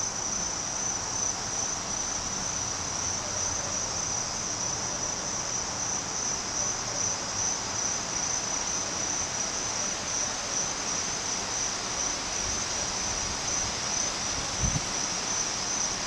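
Steady, high-pitched chorus of insects, an unbroken shrill buzz over faint outdoor background noise, with a soft low bump near the end.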